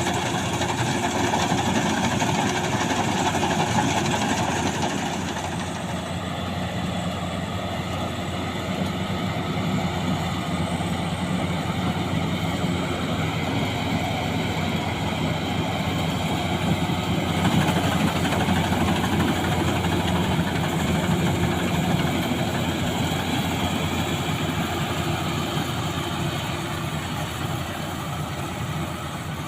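Maxxi Bimo 102 combine harvester running steadily, its engine holding an even pace.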